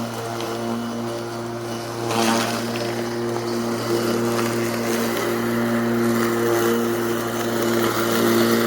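Bosch CityMower 18-volt cordless lawnmower running and cutting grass: a steady electric motor hum with a whirring blade. It grows louder about two seconds in and stops suddenly at the end.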